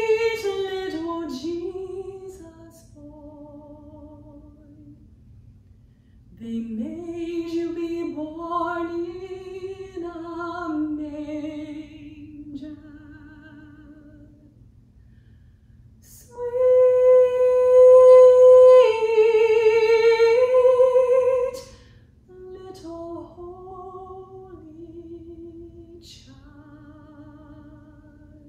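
A woman singing a slow solo with vibrato, in phrases with short pauses between them. About two-thirds of the way through she holds a long, loud high note.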